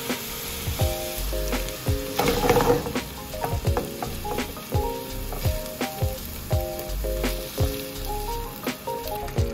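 Minced chicken and chopped vegetables sizzling in a hot frying pan as liquid sauce is added and stirred in with a silicone spatula; the sizzle swells for about a second a couple of seconds in. Background music with a steady beat plays throughout.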